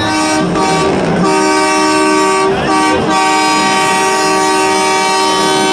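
Many vehicle horns, including truck air horns, sounding together in a loud chorus of steady held notes at several pitches, broken by a few short gaps, as in a honk-off.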